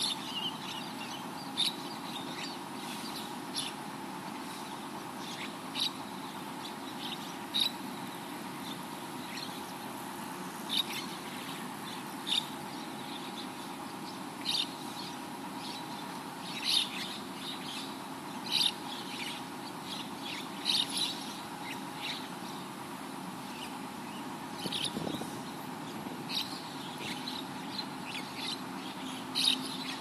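A flock of mynas calling: short, sharp chirps every second or two, some in quick clusters, over a steady low hum in the background.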